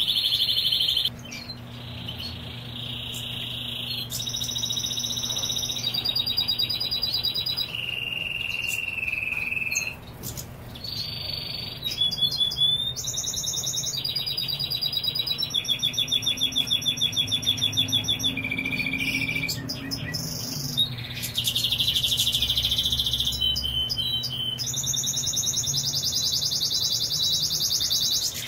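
European goldfinch singing: a long, unbroken run of high, varied twittering phrases and fast trills, changing from one phrase to the next every second or two.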